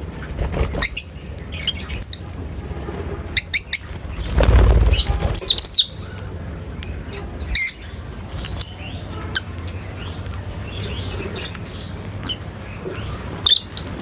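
Lovebirds chirping in short, high, scattered calls, several in quick clusters. A loud rustling flutter comes about four seconds in and lasts a second or two, the loudest sound here.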